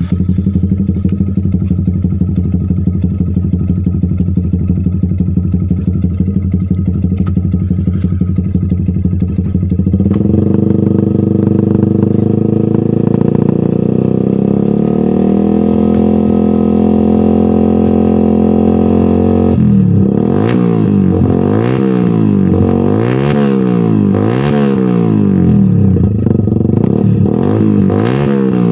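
Yamaha R15 V2's single-cylinder four-stroke engine running through a NOISE N1 short aftermarket racing exhaust. It idles steadily, then about ten seconds in holds a higher steady speed, and from about twenty seconds in it is revved up and down repeatedly in quick blips.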